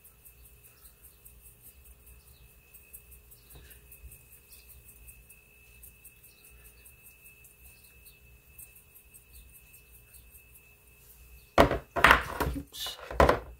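Faint rattle of seasoning being shaken from a glass shaker jar, over a steady faint electrical hum. Near the end comes a short run of much louder knocks and handling sounds, the loudest part.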